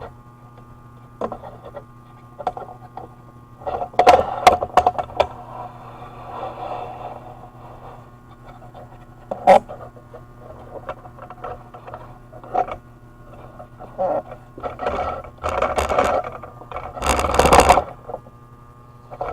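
Handling noise: scattered knocks, clicks and scraping as things are picked up, moved and set down, with a longer scrape or rustle near the end, over a steady low hum.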